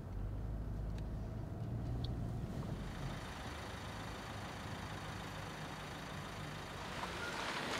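Car engine idling with a low steady hum; a hiss grows louder near the end.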